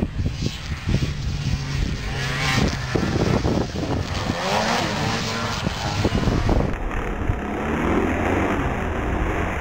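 Snowmobile engine running hard as the sled comes across the snow and passes close by, its note rising and falling as it goes past.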